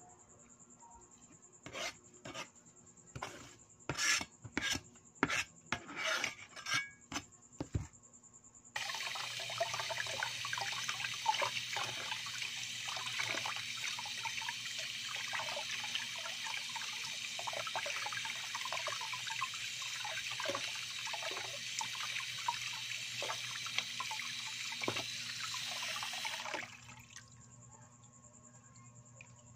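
A quick, irregular run of about ten knocks and scrapes. About a third in, a kitchen tap starts running into a plastic tub while peeled cucumbers are rubbed and rinsed under the stream. The water cuts off suddenly near the end.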